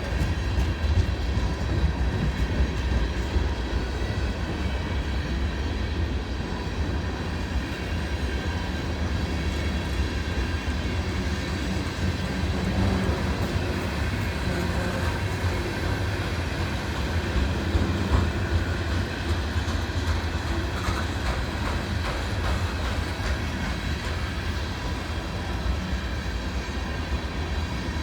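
Freight train cars rolling past, a steady rumble of steel wheels on the rails with clickety-clack over the rail joints.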